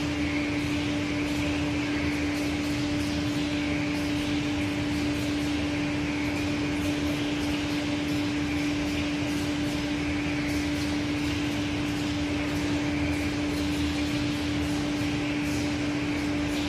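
A 1988 Aschersleben SZ 2000x1500x9000 guideway grinding machine running: a steady machine hum with one strong steady tone, and a hiss that swells and fades about every two seconds.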